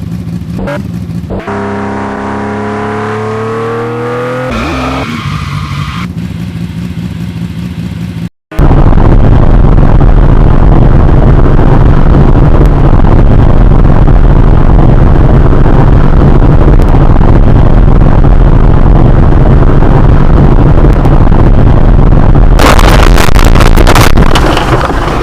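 Loud motor vehicle engine sounds. The first few seconds are short spliced clips with pitch glides like revving. After a sudden cut about eight seconds in, a very loud engine runs steadily at a constant pitch.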